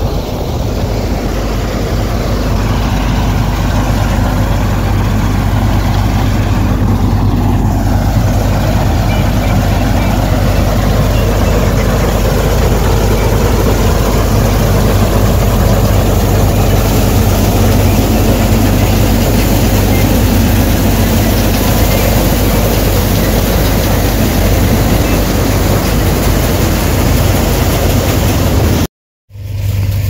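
Punni combine harvester running steadily under load as it cuts standing wheat, a loud, even engine and machinery drone with a steady low hum. The sound cuts out abruptly for about half a second near the end.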